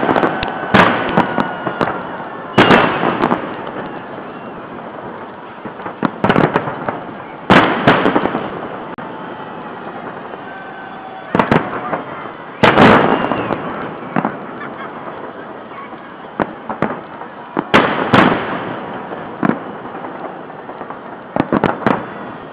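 Festive salute heard from across a wide river: fireworks shells bursting overhead mixed with blank volleys from D-44 field guns. About ten loud booms come every few seconds, each trailing off in a rolling echo, over a steady background of crowd and city noise.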